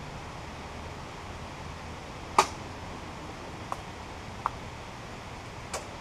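A single sharp knock about two and a half seconds in, then three fainter clicks over the next few seconds, against a steady background hiss.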